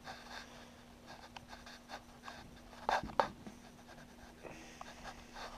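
Faint clicks and handling rustle from a game controller being thumbed in the hand, with two louder knocks about three seconds in, over a faint steady hum.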